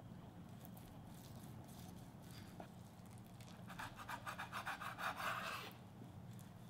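Chef's knife sawing through a Korean blood sausage (sundae) on a wooden cutting board: a quick rhythmic rasp of the blade working through the chewy casing for about two seconds past the middle, over a faint low hum.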